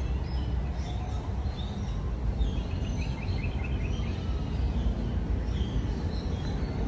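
Birds chirping, with a quick run of short repeated chirps about two and a half seconds in, over a steady low rumble of outdoor background noise.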